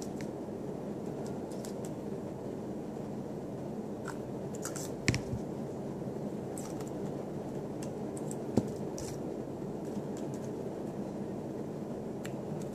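Small handling noises, a few short clicks and light scratches, as a syringe and a metal rebuildable atomizer are handled while e-liquid is dripped into the tank, over a steady room hum.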